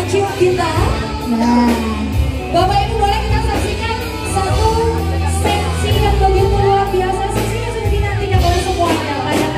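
Pop music with a singer's voice carrying a wavering melody over a steady bass line.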